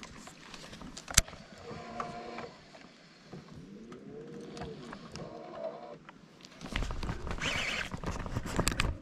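Baitcasting reel being wound, its gears whirring in uneven spells that rise and fall in pitch, with a sharp click about a second in. From about two-thirds of the way through, louder rough handling noise as the rod is swept into a hook set on a fish that has hit the lure on the drop.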